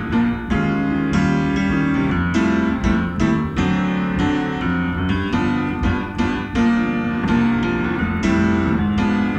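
Jazz piano playing an up-tempo tune, chords and low bass notes struck in a steady rhythm.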